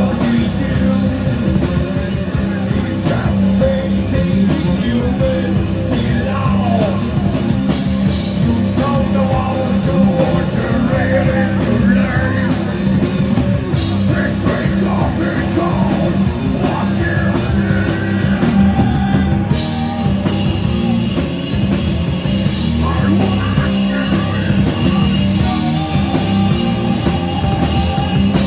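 Live rock band playing loudly, with a punk-style singer yelling over guitars and drums.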